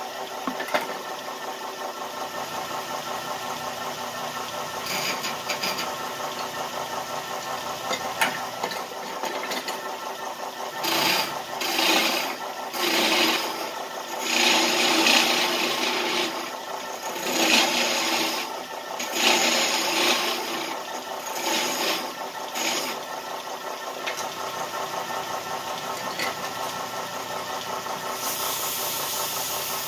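Craftsman Model 103 belt-driven wood lathe running with a steady motor and belt hum, while a turning tool cuts into the spinning wooden spindle in several louder scraping spells in the middle.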